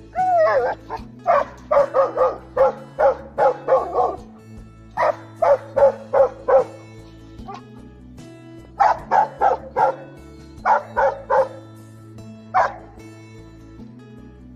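Bhotia sheepdog barking in quick runs of three to nine barks, after a drawn-out yelp that falls in pitch at the start, with one last bark near the end; the barking is aimed at monkeys. Background music with a steady low beat runs underneath.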